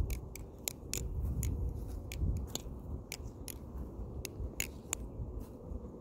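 Balisong (butterfly knife) being flipped: its metal handles and blade clack together in irregular sharp clicks, about three a second.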